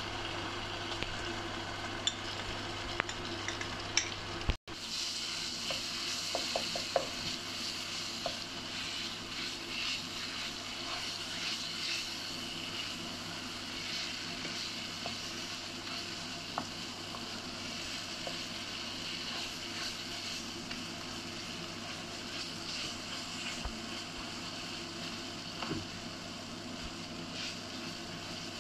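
Tomato paste and chopped garlic sizzling in hot oil in a frying pan, with a wooden spoon scraping and stirring against the pan and light crackles throughout. The sound cuts out for a moment about four and a half seconds in.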